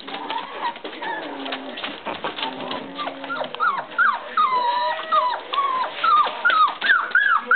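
Four-week-old puppies whining and squeaking. At first there are low, soft sounds, then from about three and a half seconds in a run of short high whines, several a second, that grows louder.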